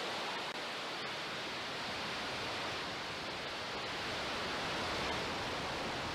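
Falcon 9 rocket's nine Merlin 1D first-stage engines firing just after liftoff: a steady rushing roar of exhaust noise, with the deep rumble filling in more strongly after about four seconds.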